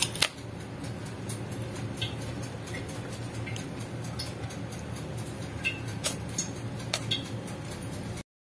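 A steady low hum with a few short, scattered clicks; the loudest comes right at the start, and the rest are faint and irregular. The sound cuts off just before the end.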